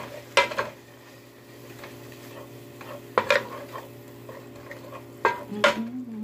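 A wooden spoon stirring and scraping sliced onions and garlic in a frying pan, with about six sharp knocks of the spoon against the pan, over a light sizzle of sautéing.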